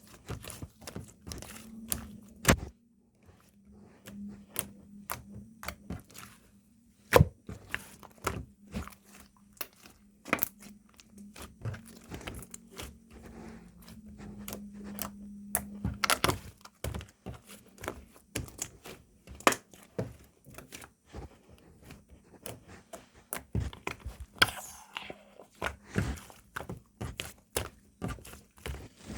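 Slime being pressed and stretched by hand, giving a quick, irregular run of sharp pops and clicks.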